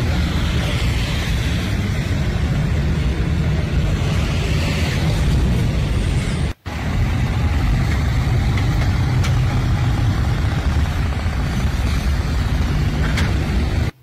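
Steady low rumble of running engines, like heavy construction machinery, cut by a sudden brief gap about six and a half seconds in.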